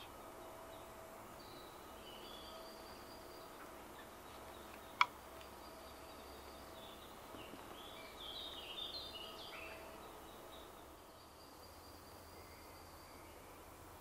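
Faint songbird calls and short twittering phrases over a steady background hum of distant road-construction machinery, with one sharp click about five seconds in.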